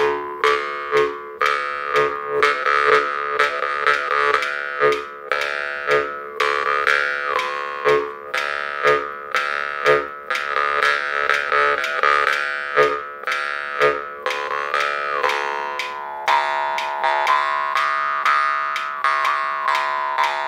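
Jaw harp (vargan) played in a steady rhythm: a twanging metal drone whose overtones glide up and down, struck in regular plucks about once or twice a second. A Wittner Tactell Piccolino clockwork metronome is ticking along with it.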